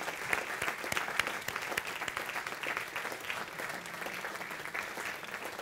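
Audience applauding: many people clapping at once, easing off a little toward the end.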